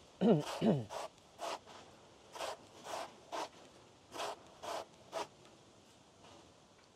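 A knife slicing thin rounds off a green banana stem: about eight short cutting strokes, roughly two a second, stopping about five seconds in.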